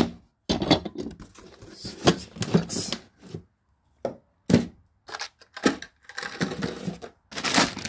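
Things being handled on a plywood board: rustling of cardboard and a plastic bag of metal nuts, with light knocks of tools against the wood, coming and going in short spells.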